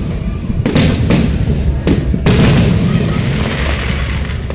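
Fireworks exploding overhead: four sharp bangs in quick succession in the first half, each followed by a rolling, rumbling echo, and another bang right at the end.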